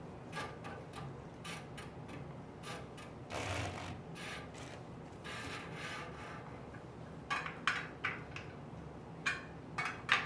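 Bicycle wheel spinning in a truing stand, its rim rubbing and ticking against the feeler gauge at the out-of-true spots, in short irregular scrapes and clicks with one longer scrape about three and a half seconds in. The rubbing is the sign that the rim is still out of true at those spots.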